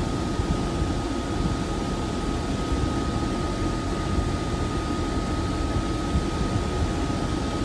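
Drying fans and a small dehumidifier running steadily: an even drone with a thin steady whine over it.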